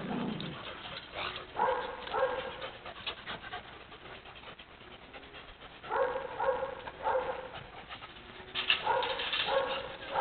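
Dogs barking in short bouts of several quick barks: one bout about a second and a half in, another about six seconds in, and a last one near the end, with quieter stretches between.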